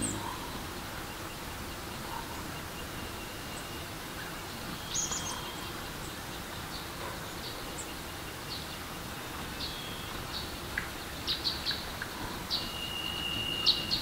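Steady rushing of a forest stream with songbirds calling over it: scattered short high chirps, a quick run of chirps about three-quarters of the way in, and a long thin whistle near the end.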